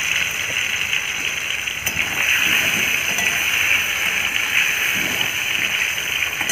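Cut potato pieces sizzling steadily as they fry in hot oil in a kadai.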